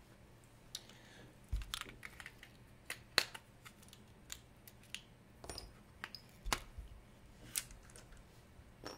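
Faint, irregular light clicks and taps of small metal watch parts and tools being handled and set down on a bench mat, sometimes several in quick succession.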